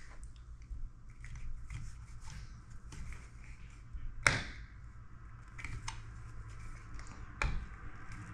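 Foam dispensing gun on a Great Stuff Pro can, worked at screw holes in drywall to fill them with expanding foam: faint scattered clicks and taps, with a sharper click about four seconds in and another near the end.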